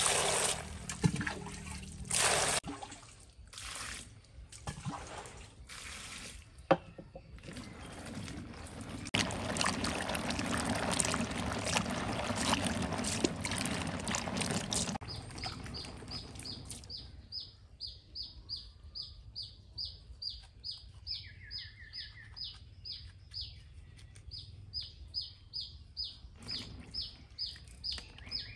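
Water poured in splashing bursts over fresh chilies in a bowl, then hands swishing and rubbing the chilies in the water. Through the second half, a bird chirps steadily, about two chirps a second.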